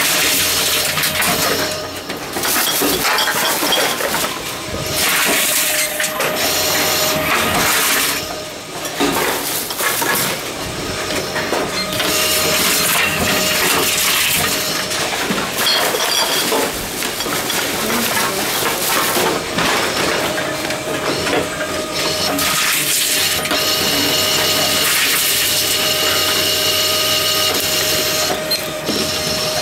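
Envipco ULTRA 48 reverse vending machine taking in plastic bottles fed one after another: a continuous din of clattering and crunching containers over the machine's running mechanism, with a steady whine near the end.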